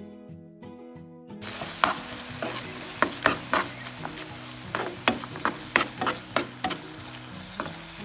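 Curry masala frying in a pan as it is stirred: a steady sizzle with frequent sharp clicks and scrapes of the spoon against the pan, starting about a second and a half in, over background music.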